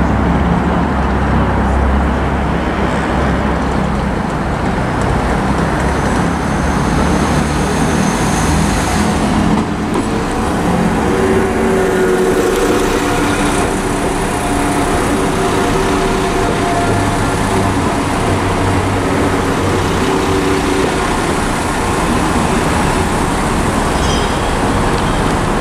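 Class 172 Turbostar diesel multiple unit arriving and drawing into the platform, its diesel engines running with a steady low hum that is strongest in the first few seconds, then held tones as it slows.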